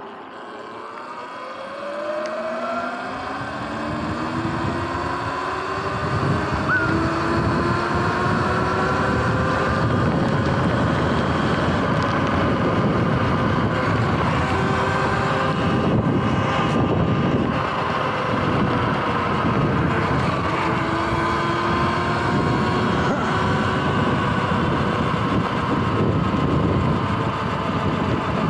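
Sur-Ron electric dirt bike's motor whining, rising in pitch as it speeds up over the first few seconds, then running at a steady speed with wind rushing over the microphone.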